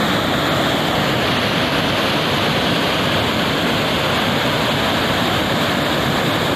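Fast-moving floodwater rushing and churning in a torrent over a wall and steps: a steady, loud rush of water.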